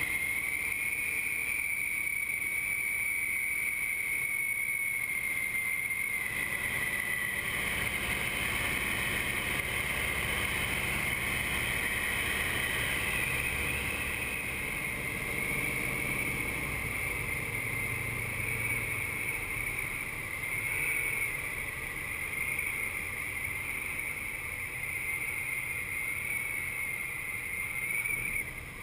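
Steady drone of a nine-cylinder radial aircraft engine and its propeller, with wind rush, heard inside a tandem trainer's cockpit. It drops suddenly in level near the end.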